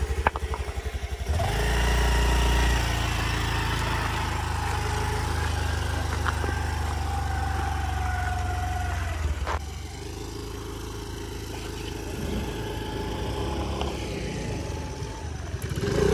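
Motor scooter engine running under load on a rough, rocky dirt track: a steady drone with a whine that slowly falls in pitch, easing off with a sharp knock about nine and a half seconds in, then running more quietly.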